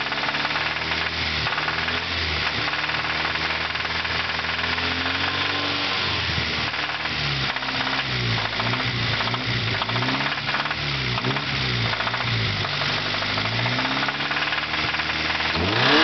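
1992 Acura Integra's B18A1 1.8-litre four-cylinder running with a heavy, rhythmic knock, its engine speed rising and falling. Right at the end it revs up sharply. The knock is a connecting-rod knock from a failing rod bearing.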